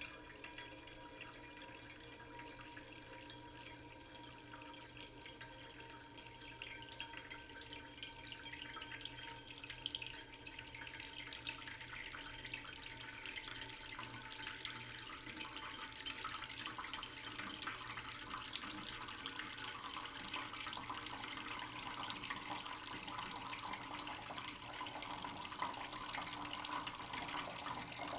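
Slow stream from a tap running into a cooking pot in a sink, a steady trickle and splash of water that grows a little louder as the pot fills.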